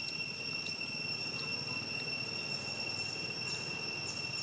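Steady high-pitched insect drone, with a few short high chirps now and then over a low outdoor rumble.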